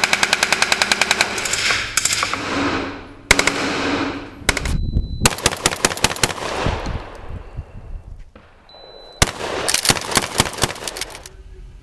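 Several bursts of rapid automatic gunfire, each burst a fast string of shots about seven a second, with the reports ringing out after each run.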